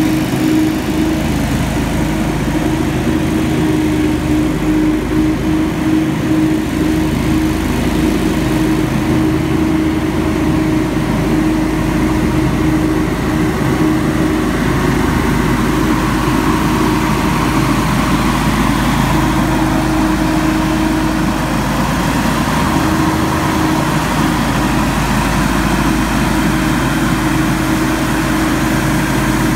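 Hurricane X3 stand-on leaf blower running steadily at work, its engine and fan making a loud, constant drone as it blasts a pile of leaves.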